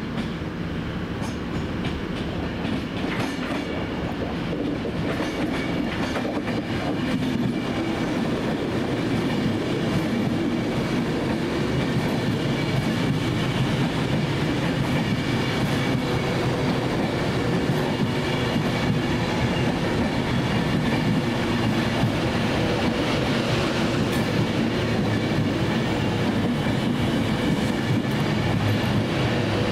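Avanti West Coast Class 390 Pendolino electric train arriving at the platform, its running noise growing louder over the first several seconds and then holding steady, with a steady high whine above it.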